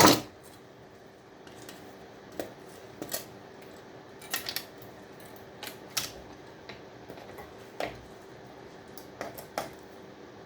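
A loud sharp metallic clank right at the start, then scattered light clicks and taps of scrap circuit boards, copper pieces and hand tools being handled, over a faint steady hum.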